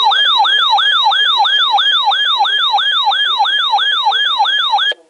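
Electronic siren yelp: a loud pitched tone that jumps up and slides down again, about three times a second, cutting off abruptly near the end.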